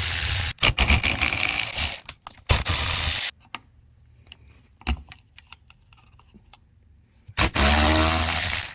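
Cordless power driver running in short bursts as it backs out the small Torx screws on an intake manifold. There is a quiet stretch of light clicks in the middle, then the driver runs again near the end.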